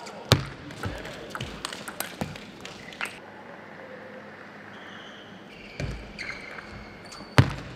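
Table tennis rally: the celluloid ball clicking off the rackets and the table in quick succession for about three seconds, then stops. Squeaks, likely shoes on the court floor, follow a couple of seconds later, and there is a single loud thump near the end.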